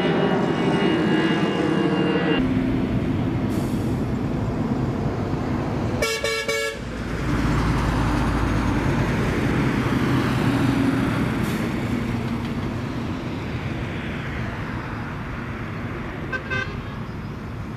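Twin-engine Airbus A320-family jet airliner passing overhead and climbing away, its engine noise steady with a whine over the first couple of seconds, then slowly fading. A car horn honks once about six seconds in, and a shorter, fainter honk comes near the end.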